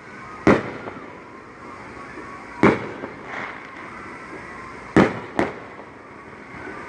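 Fireworks going off nearby: four sharp bangs, the last two close together.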